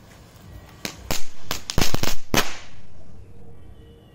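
Small Shri Ram Fireworks 'Kit Kat' chitput crackling cracker going off on the ground: about a second in comes a quick series of six or seven sharp cracks over a second and a half, with a hiss between them that dies away.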